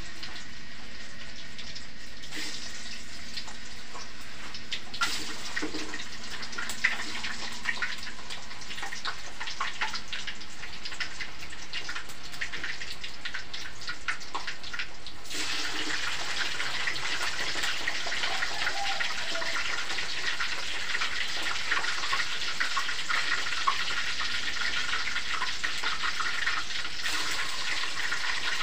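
Hot oil sizzling in a wok, a steady crackling hiss that grows louder about halfway through.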